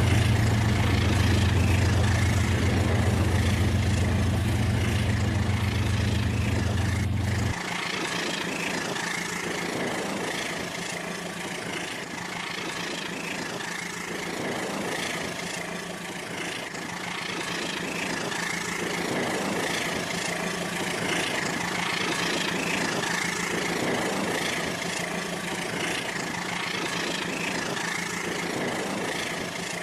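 Rail King remote-control toy train running on its track: a steady mechanical running noise. A low hum stops abruptly about seven and a half seconds in, leaving the lighter running noise.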